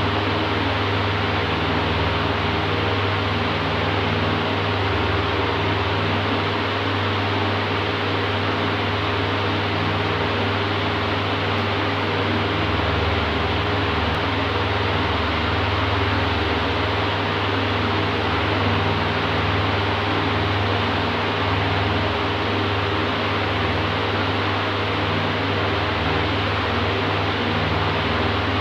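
Electric oscillating fan running: a steady rush of air over a low motor hum, with no break or change in level.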